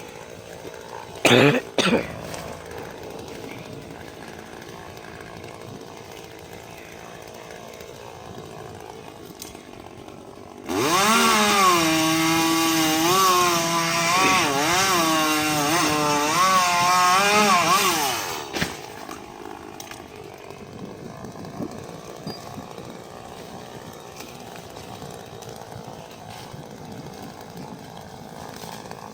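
Echo CS400 two-stroke chainsaw running at full throttle through a cut for about eight seconds in the middle, its pitch dipping and recovering as the chain bogs in the wood. Two brief rising revs come about a second and a half in.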